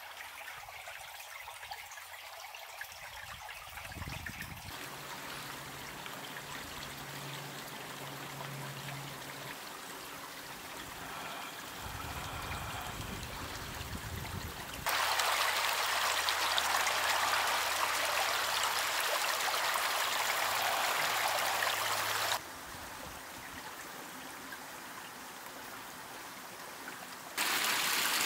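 A small ice-edged stream trickling and running. It comes in several takes that switch abruptly, louder for a long stretch in the middle and again near the end.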